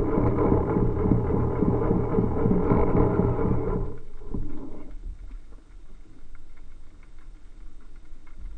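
Underwater, a steady mechanical drone with fast pulsing, like a motor heard through water, cuts off about four seconds in and leaves fainter, uneven water noise.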